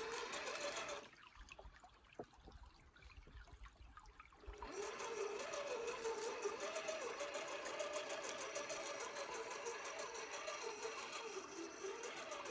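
RC rock crawler's electric motor and gearbox whining, the pitch wavering up and down with the throttle. It stops about a second in for three and a half seconds, then starts again.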